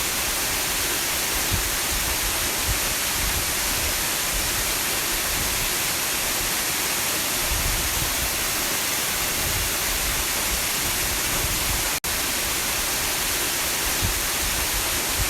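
Small waterfall making a steady rush of falling water. It breaks off for an instant about twelve seconds in and carries straight on.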